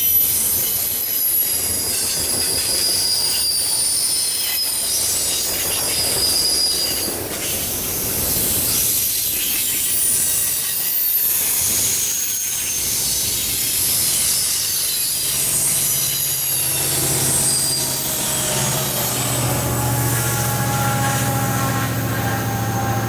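Double-stack intermodal container cars rolling past, with high-pitched wheel flange squeal and rail clatter. About two-thirds through, the squeal dies away and a steady low engine hum takes over.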